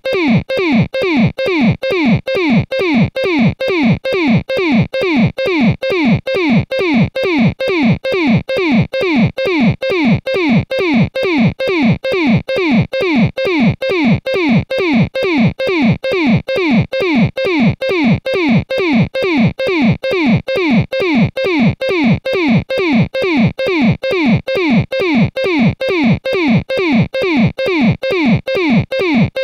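Looped synthesized blip that dives quickly in pitch, repeating in a steady pulse about two and a half times a second: an electronic warble effect in the style of a circuit-bent warble noisemaker.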